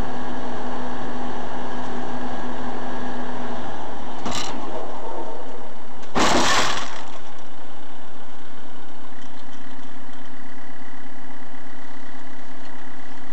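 Constant loud road and engine noise of a car, as picked up by a dashcam microphone. A short knock comes about four seconds in, and a louder impact lasting about half a second comes about six seconds in.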